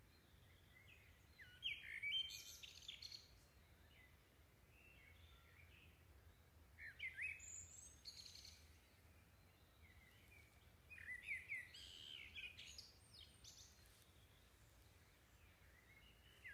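Faint bird chirping in three short bouts a few seconds apart, each a quick run of high twittering notes, over a faint low hum.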